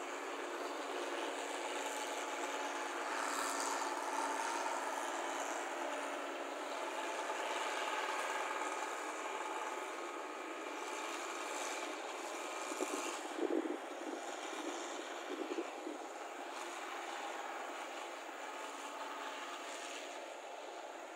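New Holland combine harvester running steadily while it cuts and threshes rice, a continuous mechanical drone of engine and threshing machinery, with a few brief louder bumps a little past the middle.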